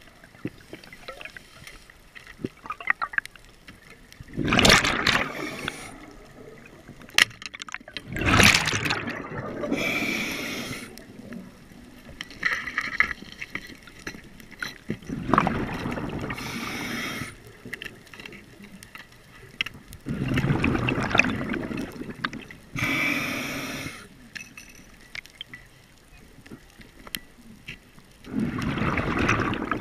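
Diver breathing on a scuba regulator, heard underwater: a gush of exhaled bubbles every several seconds, with hissing inhalations between them.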